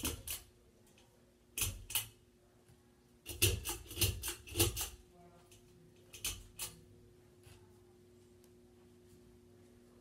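Pull-chain switch on a Hampton Bay Hugger ceiling fan's light kit clicking as the chain is pulled, toggling the light on and off: clicks in pairs, a quick run of them about three to five seconds in, and a last pair near the middle. A steady low hum from the running fan motor lies underneath.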